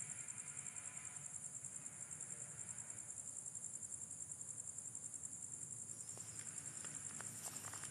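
Night insects trilling: a steady, high-pitched, rapidly pulsing chirr, with a few faint clicks near the end.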